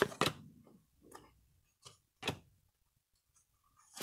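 Thin cardboard trading cards being flicked through by hand: a few short, sharp card snaps spaced out over the first couple of seconds, then a quiet stretch before the snapping starts again near the end.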